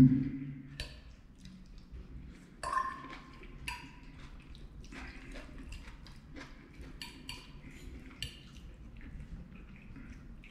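Metal fork tapping and scraping on a plate while picking up food: a scattered string of light clinks, a few ringing briefly, the clearest about two and a half seconds in.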